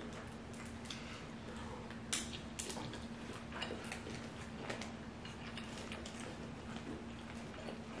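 Boiled seafood shells cracking and peeling by hand, with plastic bags crinkling: a stream of small irregular clicks and crackles, the sharpest about two seconds in. A steady low hum runs underneath.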